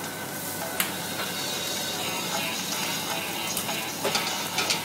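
Noodles sizzling in a wok over a high gas flame, against the steady noise of the burner. There are a few sharp metal clinks of the stainless colander and utensils knocking against the wok, one about a second in and a cluster near the end.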